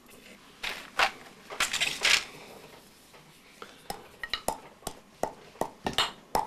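Pestle pounding stensöta (polypody fern root) in a mortar: a few loud crunching strikes in the first couple of seconds, then quicker sharp knocks, about three a second, from about halfway.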